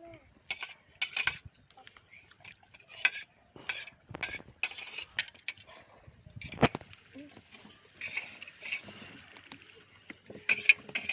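Metal spoon scraping and clinking against metal cookware in irregular strokes, with a sharper knock a little past halfway.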